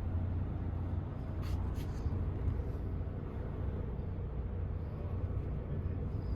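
Volvo D13 diesel engine idling steadily, a low even rumble.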